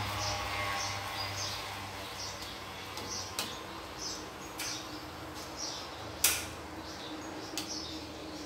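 A metal utensil knocking and scraping against a steel wok as greens are stirred in hot water, with a few sharp taps, the loudest about six seconds in, over a steady low hum from the gas burner.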